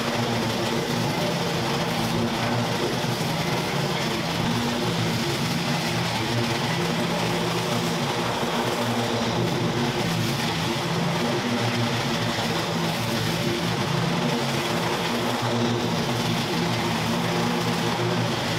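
An engine running steadily at an even speed, a continuous drone with no revving.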